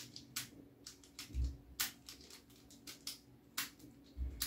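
Qiyi 3 cm mini Rubik's cube being turned by hand to scramble it: irregular plastic clicks as the layers turn, with two dull low bumps about a second and a half in and near the end.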